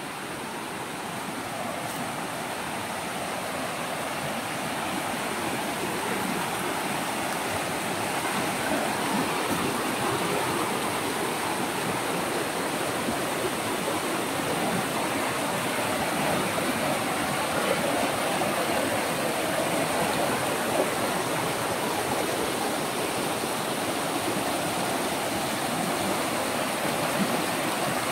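Fast mountain river rushing over rocks and fallen logs in whitewater rapids, growing louder over the first several seconds and then steady.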